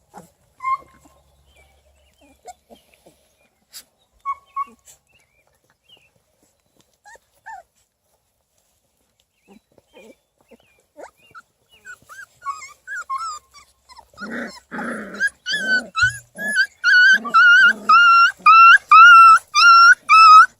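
Beagle puppies making scattered faint squeaks and whimpers, then, about two-thirds of the way through, a run of high, pitched squealing yelps that grows loud and steady at about two a second, with a few rough, growly bursts partway in. The squealing is a pup crying as a littermate holds it by the ear.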